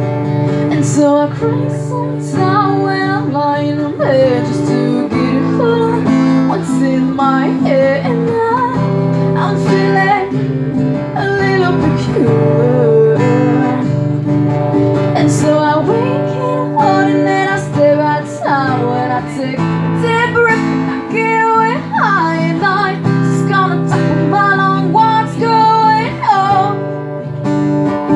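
Strummed acoustic guitar accompanying a woman's singing voice, performed live.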